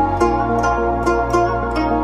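Background music: an instrumental passage of a song, with plucked-string notes over a steady low bass.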